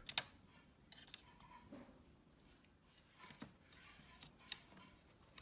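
Near silence with a few faint, scattered small clicks and taps.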